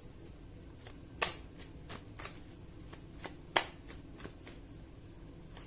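A deck of tarot cards being shuffled and handled in the hands: a run of about a dozen irregular, sharp card snaps and taps, two of them louder, about a second in and past the middle.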